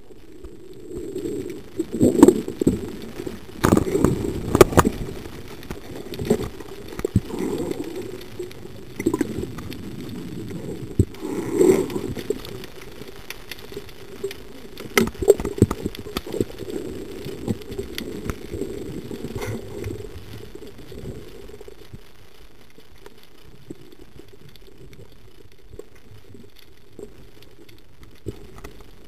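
Muffled underwater sound picked up through a camera's waterproof housing: a low rumble of water movement with irregular knocks and clicks from the diver and the speargun. The knocks come thickly over the first twenty seconds, then it settles to a low, steady hiss.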